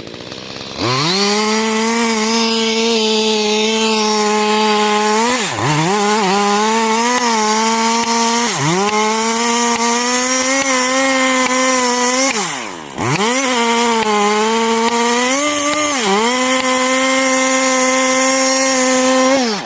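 Two-stroke chainsaw cutting through a large tree trunk at full throttle. The pitch sags several times as the chain bogs under load in the cut and recovers. The engine drops off briefly about two-thirds of the way through, then revs back up.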